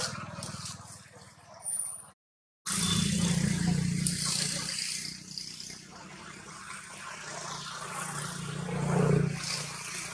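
A motor engine running steadily, with a hiss of outdoor background noise. The sound cuts out completely for about half a second around two seconds in, then comes back and swells near the end.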